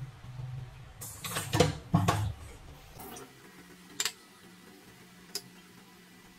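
A few sharp clicks and light knocks: a quick cluster in the first half, then two single ticks a second or so apart, over a faint low steady hum.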